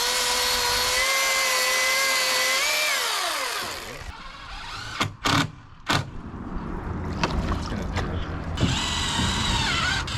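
A power saw's motor running at high speed, then winding down about three seconds in. A few sharp knocks follow, and the motor runs up again near the end.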